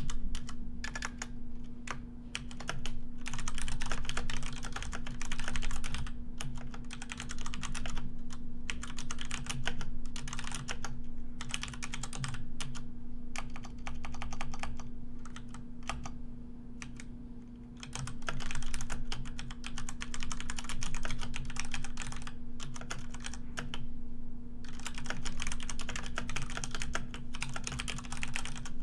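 Computer keyboard being typed on: rapid runs of key clicks in bursts with short pauses between them, over a steady low hum.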